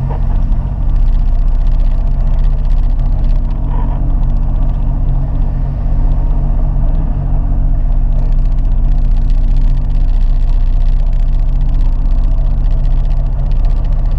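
Sea-Doo GTI 130 jet ski's three-cylinder four-stroke engine running steadily at low revs, a deep even drone that holds constant while the craft idles slowly forward.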